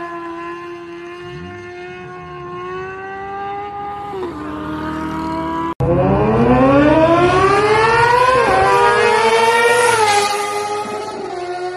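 Sportbike engine held at high revs and steady in pitch, dipping about four seconds in. After an abrupt cut it accelerates hard, its pitch climbing with one brief dip midway, then the revs fall away near the end.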